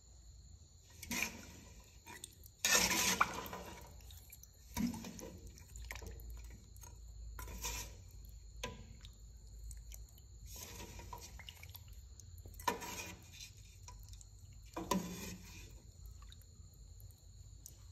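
Metal ladle stirring and scooping thick beef curry in a metal pot: about seven short bursts of sloshing sauce with clinks of the ladle against the pot. The longest and loudest burst comes about three seconds in.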